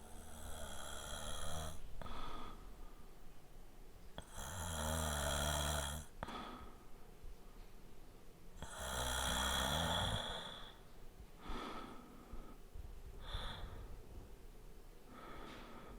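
A man snoring lightly in his sleep: three snores, about four seconds apart, each a low buzzing in-breath lasting under two seconds, with softer breaths between. The last few seconds hold only quiet breathing.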